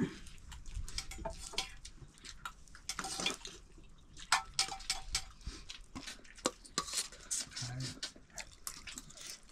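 Scattered clinks and taps of dishes and utensils, irregular and unhurried, a few of them ringing briefly.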